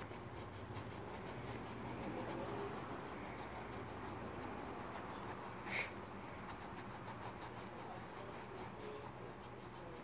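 Paintbrush strokes scratching and rubbing across a stretched canvas, with one short, higher-pitched sound about six seconds in.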